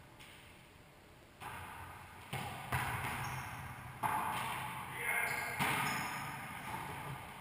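A wallyball being struck by players' hands and played off the court walls: about five sharp hits, each ringing on in the enclosed court, with players' voices between them.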